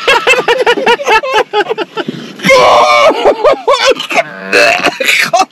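Men laughing hard in pulsing bursts, breaking into loud shrieking laughter about halfway through and again near the end.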